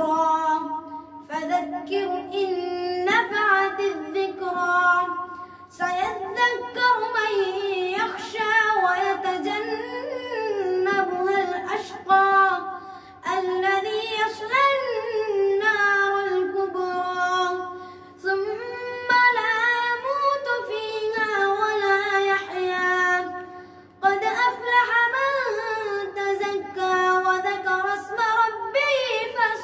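A boy reciting the Quran from memory in melodic chanted tilawah style, long, held phrases with short pauses for breath between them.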